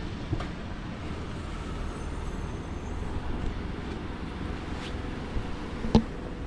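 Steady low rumble of road traffic, with a single sharp knock near the end.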